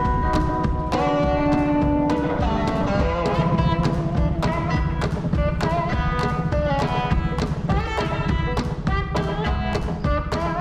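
Background music with a steady drum beat, electric guitar and bass.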